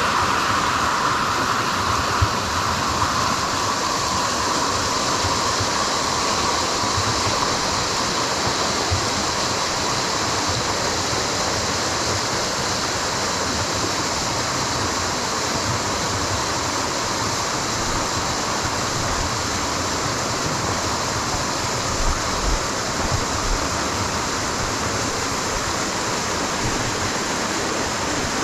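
Waterfall cascading down the rock, a steady rushing of falling water.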